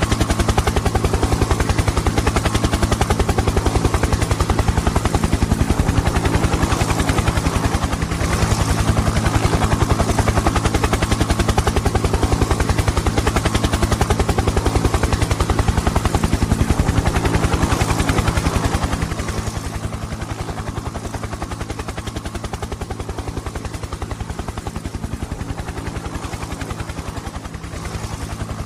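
Helicopter rotor beating rapidly and evenly over a steady engine hum, dropping somewhat in level about two-thirds of the way through.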